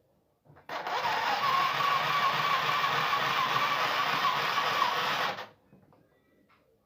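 Mini sewing machine running in one steady burst of about five seconds, with a motor whine, as it stitches; it starts just under a second in and stops abruptly.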